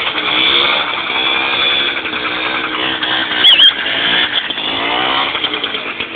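Homemade ATV's MZ two-stroke motorcycle engine revving up and down as it drives. A short high squeal comes about three and a half seconds in.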